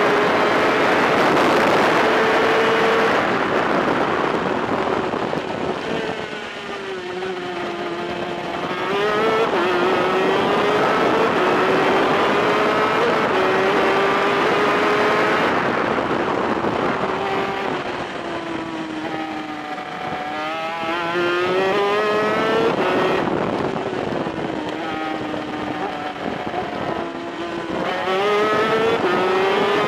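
Onboard sound of a VM 250cc twin-cylinder superkart engine at racing speed. Its pitch climbs in steps as it pulls through the gears, then falls away under braking about six, eighteen and twenty-four seconds in before rising again.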